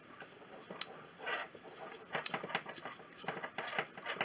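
Handling noise from a coax cable and a plastic cable tester: scattered sharp clicks and short scraping rustles as the cable's connector is worked onto the unit.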